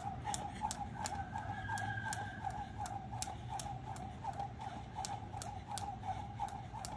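Jump rope slapping the ground with each turn, a crisp regular click about three times a second, over a steady wavering background tone.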